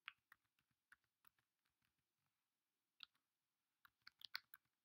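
Faint computer keyboard typing: scattered single keystrokes at first, then a quick run of key clicks near the end.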